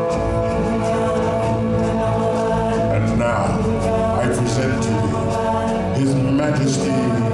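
Live stage-show music: a chorus of voices singing held notes over sustained chords, with percussion hits coming in about three seconds in.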